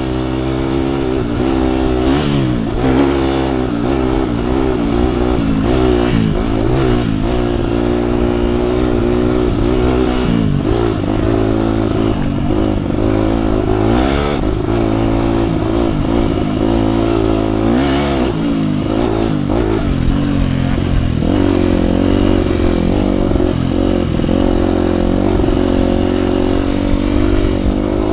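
2007 KTM 250 EXC-F dirt bike's single-cylinder four-stroke engine running under load on a trail. Its pitch rises and falls continually as the throttle opens and closes, with a few short knocks scattered through.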